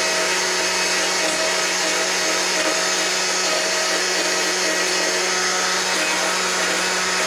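Power carving tool running steadily at high speed, cutting fur texture into wood.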